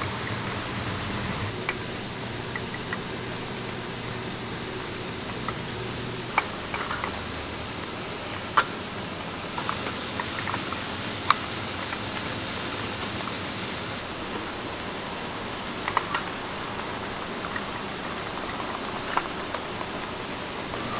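A wooden chopstick stirs sugar melting into syrup in a small metal dalgona ladle over a portable gas burner. A steady hiss runs throughout, with a few sharp clicks of the stick against the ladle.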